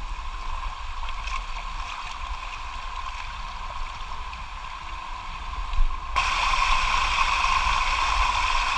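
Shallow stream water running steadily over rock, with a low rumble under it. About six seconds in it turns suddenly louder and brighter, the sound of a closer cascade.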